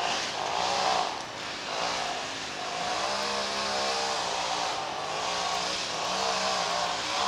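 An engine running steadily, its pitch wavering slightly, over a background hiss.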